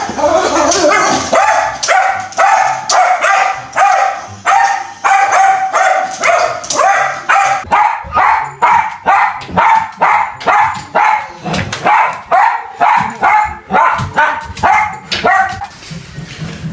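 A dog barking over and over at a steady high pitch, about two barks a second, stopping shortly before the end.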